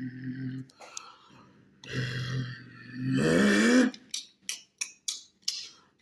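A person imitating a truck engine with their mouth: a low droning hum that rises in pitch about three seconds in, followed by a string of sharp clicks.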